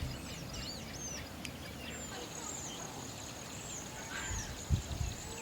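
Small birds chirping outdoors, short high downward-sweeping calls repeated throughout over a steady background hiss, with a few dull low thumps near the end.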